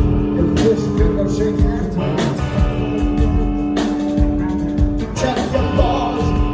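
Live rock band playing through a venue PA: electric guitars sustaining long notes over bass and drums, with drum hits every second or two.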